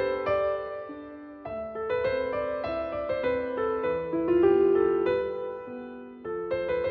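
Background music: a gentle piano melody playing sustained notes.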